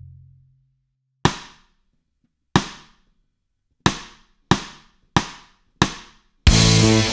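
Count-in at 92 beats per minute: six sharp clicks, two a half-bar apart then four on each beat. A full rock backing track with drums and guitar comes in near the end.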